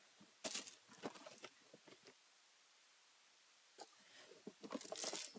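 Small plastic fidget toys and their packaging being handled: scattered light clicks and crinkly rustles in the first two seconds, a pause, then more rustling near the end.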